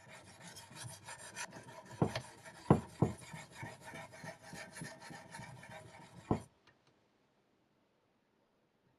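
Diamond sharpening stone in a Ruixin Pro RX-009 guided sharpener rasping along a knife edge in steady back-and-forth strokes, with a few sharp knocks. It stops about six and a half seconds in.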